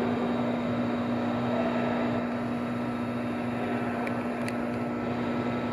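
A steady mechanical hum with one constant low tone.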